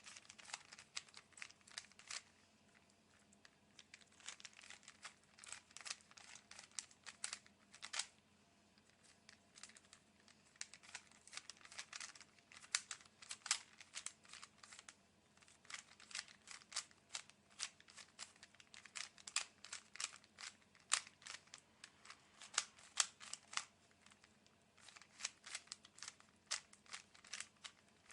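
Rubik's Cube being turned by hand: quick runs of plastic clicks and clacks as the layers snap round, broken by short pauses between sequences of moves.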